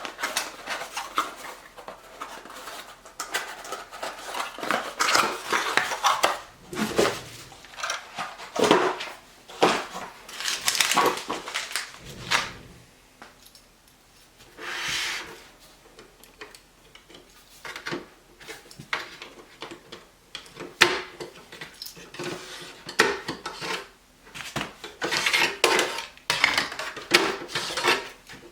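Hard drives and plastic NAS drive trays being handled: irregular clicks, knocks and clatter, with a few short stretches of sliding or rustling, such as one about halfway through.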